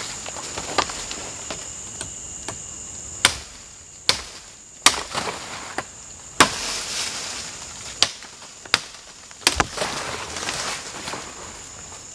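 A blade chopping at a wooden pole being trimmed: about eight sharp, irregular strokes. Behind them runs a steady, high-pitched drone of forest insects.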